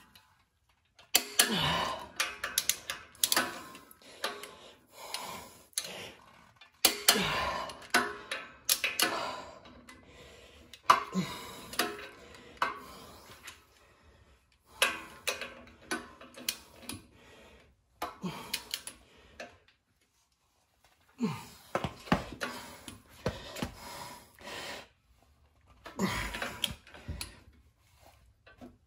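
Ratchet of a torque wrench clicking in runs of quick ticks as the ring gear bolts on a Dana 44 carrier are run down, with metal clinks and knocks of the socket and tools between runs.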